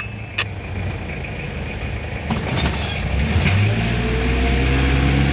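Vehicle engine running with a steady low hum, then rising in pitch from about three and a half seconds in as it speeds up.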